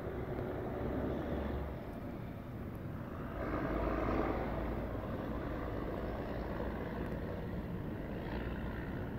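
Distant EMD SW9 switcher locomotive's 12-cylinder 567B diesel engine running, a steady low drone that swells louder about three and a half seconds in.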